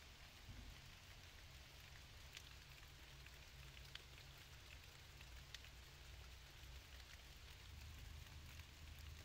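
Near silence: a faint steady hiss with a low rumble underneath and a few soft, isolated ticks.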